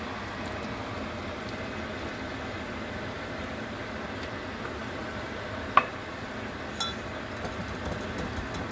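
Metal mesh strainer knocking against a glass measuring cup: one sharp clink about six seconds in and a lighter clink a second later, over a steady background hiss.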